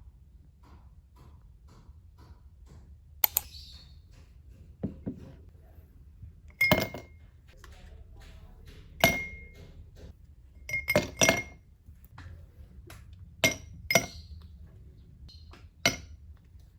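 Glass clinking as it is handled: a string of sharp clinks, several with a short ring, some coming two or three in quick succession.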